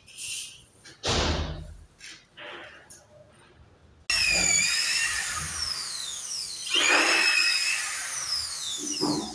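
A few short knocks, then about four seconds in a handheld power tool starts abruptly and runs loud and high-pitched, its whine sagging in pitch as it works.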